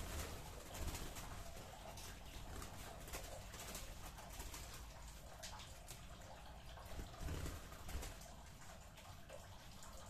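Zebra doves (perkutut) cooing in a small aviary, over rustling and soft knocks from hands working soil and plants.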